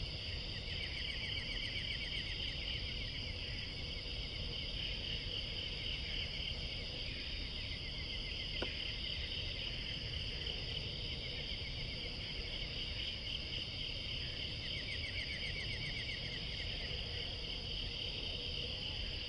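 A steady, high-pitched chorus of insects calling without pause, with a low outdoor rumble beneath it. Runs of rapid ticking come twice, and there is a single sharp click about halfway through.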